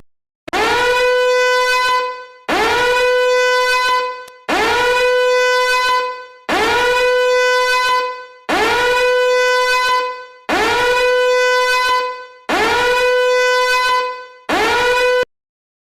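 A horn-like sound effect blasted eight times, one every two seconds. Each blast swoops up quickly and holds one steady note for about a second and a half. The last blast is cut short.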